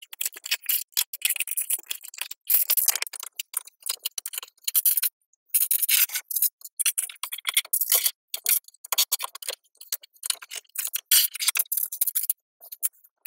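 Small plastic LEGO pieces clicking and rattling as a hand rummages through a clear plastic parts tray and fits bricks together: a rapid run of sharp clicks with a few brief pauses.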